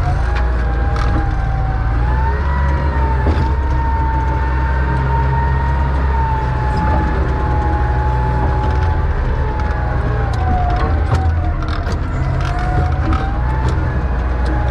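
John Deere 444 wheel loader's diesel engine running under load while handling logs, with a high whine that wavers up and down in pitch. Scattered light knocks and clicks sound through it.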